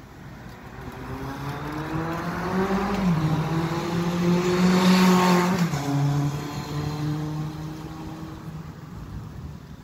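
A motor vehicle passing by: its engine note and tyre noise build up, are loudest about five seconds in, then fade away. The pitch drops just after the loudest point as it goes past.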